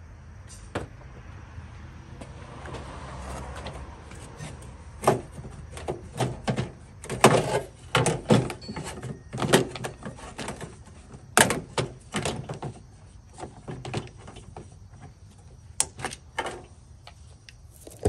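Irregular clicks, knocks and rattles of hard plastic and metal as a power liftgate latch actuator is worked loose from inside the liftgate by hand. The knocking starts about five seconds in and comes in quick clusters until near the end.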